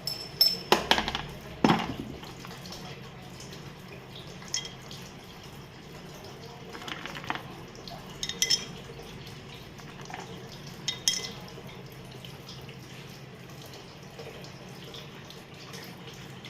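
Hard objects clinking with a short ringing tone, several close together in the first two seconds, then single clinks at about 4, 7, 8½ and 11 seconds, over a steady hiss of water.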